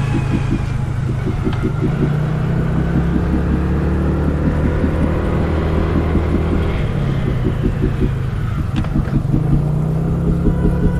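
Motor vehicle running steadily, a low engine hum with road rumble.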